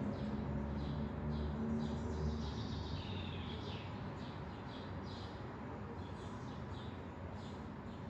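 Small birds chirping in short, repeated calls, with a run of sweeping, falling calls about three seconds in. A low hum sits underneath for the first two seconds or so, then fades.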